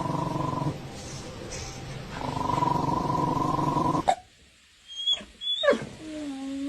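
A dog growling low and rumbling, in two stretches with a short lull between. Then, after a break, come brief high squeaks and a drawn-out whine that rises slightly in pitch.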